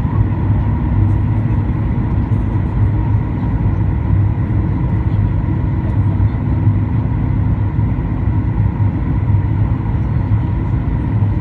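Steady cabin noise inside a Boeing 737-800 on approach: a low roar of airflow and its CFM56 turbofan engines, with a faint steady whine above it.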